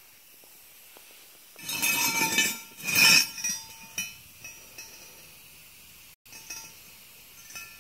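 Two short bouts of scraping and rubbing about two and three seconds in, then a few light metallic clicks: a hand handling a length of steel railroad rail.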